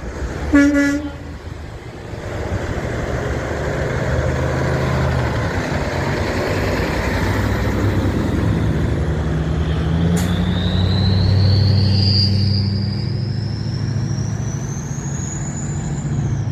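A short horn toot near the start, then a big diesel truck's engine running loud as it goes by, its low note shifting in steps. A high whine climbs in pitch over the last several seconds and drops away at the end.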